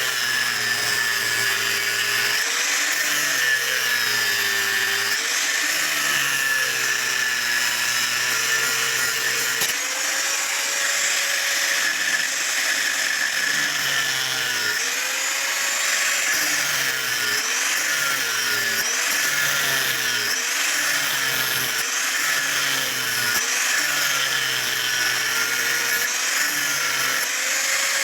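Electric grinder running on steel, its motor whine dipping in pitch and recovering again and again as the work is pressed against it and eased off.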